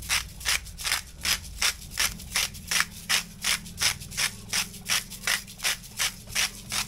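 Handheld salt grinder twisted back and forth, grinding salt in an even rhythm of about three rasping grinds a second.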